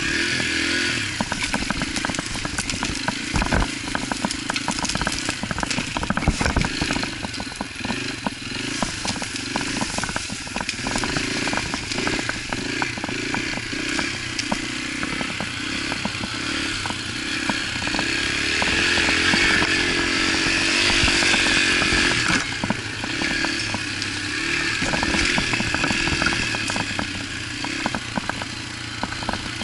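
Yamaha TT-R125 dirt bike's single-cylinder four-stroke engine running on a trail ride, its pitch rising and falling with the throttle, with frequent knocks and rattles as the bike rides over rough ground.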